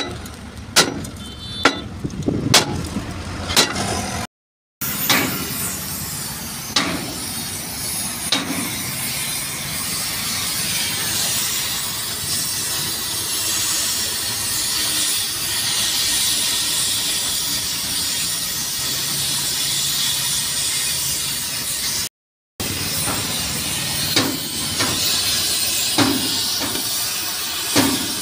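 Gas cutting torch hissing steadily as its flame cuts into a steel bracket on a truck chassis. A few sharp metallic knocks come at the start, before the hissing.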